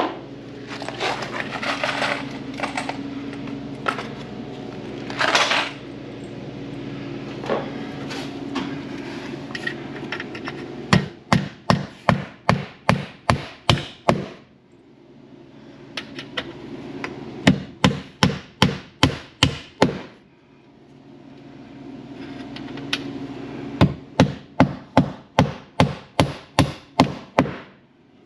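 Wooden-handled claw hammer driving nails through a metal ceiling molding into a wooden backer board: three runs of rapid, evenly spaced blows, about three to four a second, each run ending as a nail is set. The first ten seconds hold scattered rustling and knocks.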